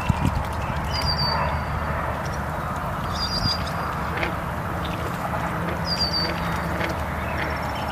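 Outdoor ambience: a steady wash of noise over a low hum, with a small bird's short, high, falling chirp a few times, every two to three seconds.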